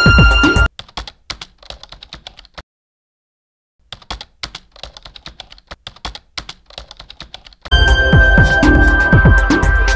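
Bass-heavy background music that stops short less than a second in, then a faint computer-keyboard typing sound effect of quick clicks, broken by a second-long pause. The music comes back about two seconds before the end.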